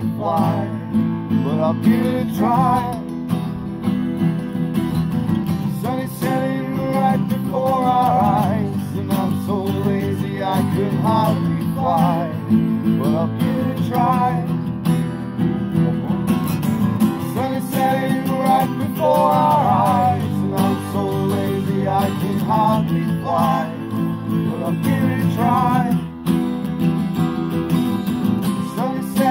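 Two acoustic guitars strumming through an instrumental passage, with a wavering lead melody that bends in pitch above the chords.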